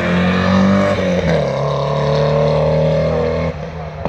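Front-engined Porsche four-cylinder race car accelerating hard up the hill-climb course, its engine note dropping about a second in at a gear change, then pulling steadily before fading as the car moves away near the end.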